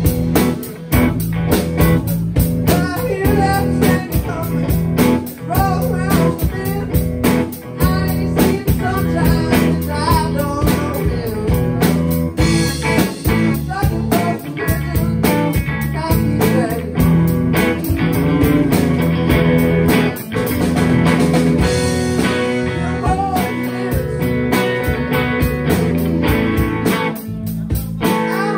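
Live blues band playing: electric guitars over electric bass and a drum kit keeping a steady beat, with bending lead-guitar lines.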